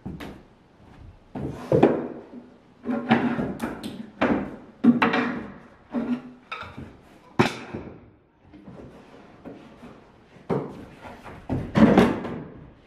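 Wooden shelf boards knocking and thudding against the frame of an old built-in bookcase as they are worked loose and lifted out: a string of irregular knocks, the loudest near the end.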